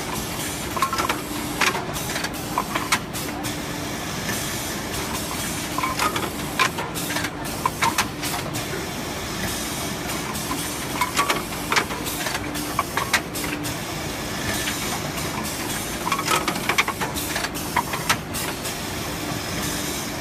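Automatic wood dowel-hole drilling machine running: a steady hiss and hum, with clusters of sharp clacks every few seconds as its pneumatic clamps and drill head cycle.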